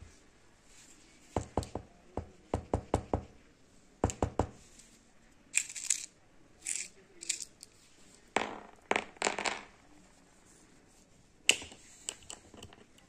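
Small steel screws clicking and tapping against a copper coin and each other as fingers move them, in quick runs of sharp clicks, followed by a few short scraping sounds and one last sharp click.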